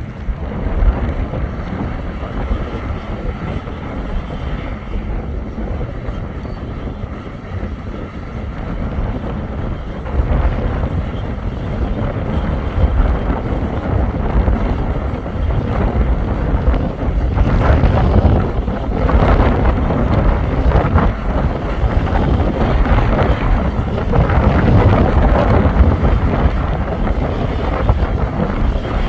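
Bulldozer's diesel engine working under load as it pushes sand, a steady low rumble that grows louder about a third of the way in, with wind buffeting the microphone.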